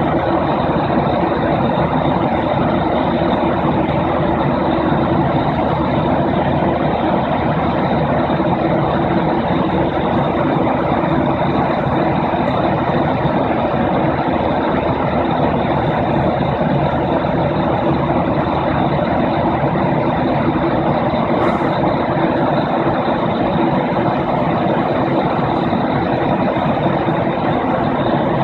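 Steady drone of an airplane in flight heard from inside the cabin: engine and rushing airflow noise with a few even hum tones underneath.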